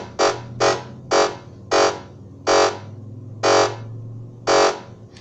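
SN76477 complex sound chip's VCO sounding in repetition mode: a string of short buzzy beeps, seven in all, that slow from about two and a half a second to about one a second as the repetition-rate control is turned down. A faint low hum sits underneath.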